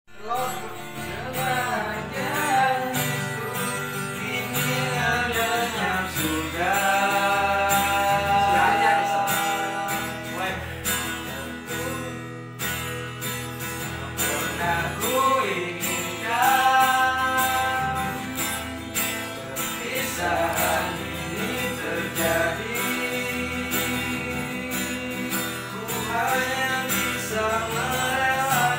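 Acoustic guitar strumming under male voices singing a slow melody with long held notes.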